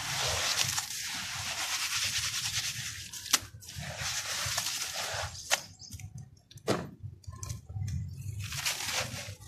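Dry red dirt crumbled by hand into a basin of muddy water: a gritty hiss of falling grit and small splashes, broken by three sharp cracks in the middle.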